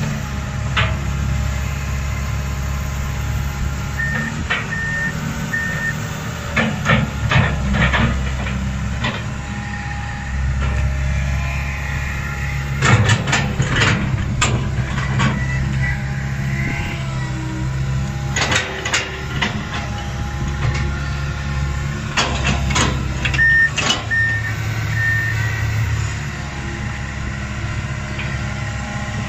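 Komatsu PC160LC hydraulic excavator's diesel engine running steadily under load while it digs, with several bursts of clanking and scraping as the bucket bites into rocky soil. Short runs of beeps sound near the start and again near the end.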